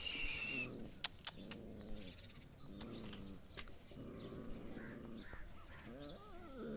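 Puppies play-fighting, giving short, low growling and whining calls about once a second, with a whine that rises and falls near the end. A brief high chirp comes at the start, and light sharp clicks run throughout.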